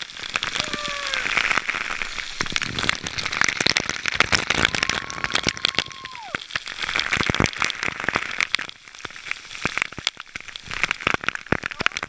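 Waterfall spray pelting the camera at close range: a dense crackle of droplets striking the housing over the steady rush of falling water.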